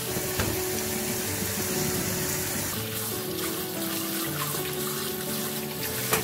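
Kitchen tap running hard into a pot in a stainless steel sink, water splashing over boiled chicken gizzards as hands rub and rinse them in cold water. Background music plays throughout, and a single short knock comes near the end.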